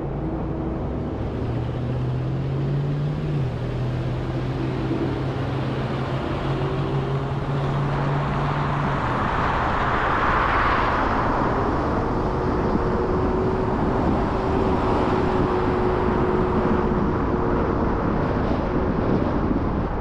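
Car driving on the road: steady tyre and engine noise, with a low drone that drops in pitch about three seconds in and fades away near the middle. A swell of rushing noise rises and falls about halfway through.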